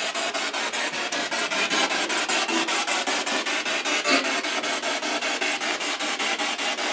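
Handheld spirit box (radio-sweep device) scanning rapidly through radio stations: a continuous hiss of static chopped several times a second as it jumps from channel to channel, with brief snatches of broadcast sound.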